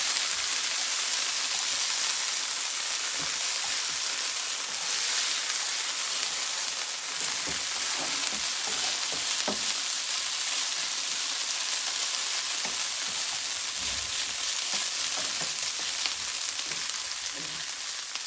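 Hash browns sizzling in a hot frying pan, a steady hiss of frying, with a few light knocks scattered through it.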